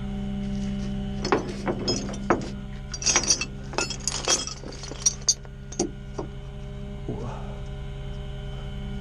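Sharp metallic clinks and rattles, a quick irregular series from about a second in to about six seconds, typical of steel tow chain and hooks being handled. Under them, the steady drone of a flatbed tow truck's engine running with its PTO engaged.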